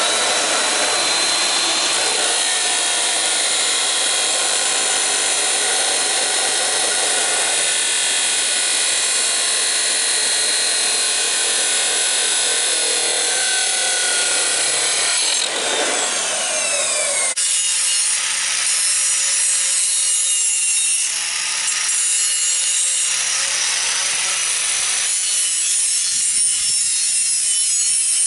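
An angle grinder working metal with a steady, loud grinding hiss. It winds down about sixteen seconds in with a falling whine, then runs again more unevenly.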